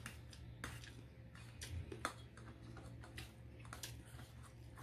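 Fork and spoon tapping and scraping a metal tray of pancit canton noodles while eating, a series of irregular light clicks.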